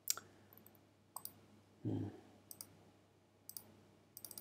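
Scattered, sharp computer mouse clicks, some in quick little clusters, with a short low sound about two seconds in.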